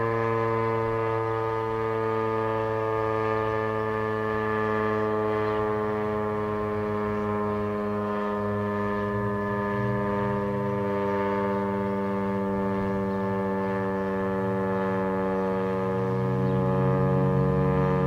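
Federal Signal STH-10 single-tone outdoor warning siren sounding a sustained tone, its pitch sinking slowly; it grows a little louder near the end.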